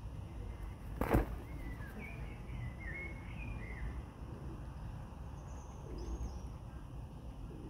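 A single sharp crack about a second in, then a bird singing a short warbling phrase of quick rising and falling notes, with a few faint high notes later, over a steady low rumble.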